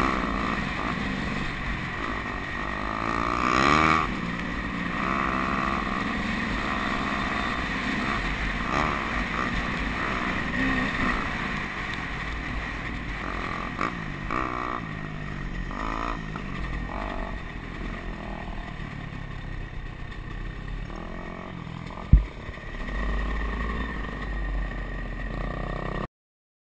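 Dirt bike engine running on the trail, revving up and falling back again and again with the throttle, with a low rumble of wind and ground noise under it. A single sharp knock about 22 seconds in, and the sound cuts off suddenly near the end.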